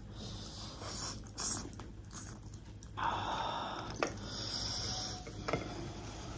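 A person eating close to the microphone: chewing and breathing, with a longer hiss about three seconds in and a couple of sharp clicks.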